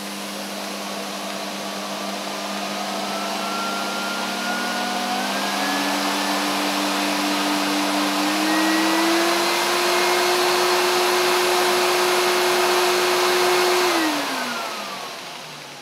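Hoover SC364 Vogue 1300 bagged cylinder vacuum cleaner's motor running, its whine stepping up in pitch and getting louder twice as the power setting is raised from minimum. About 14 seconds in it is switched off and winds down with a falling whine. The motor sounds healthy, with a bit of air rushing.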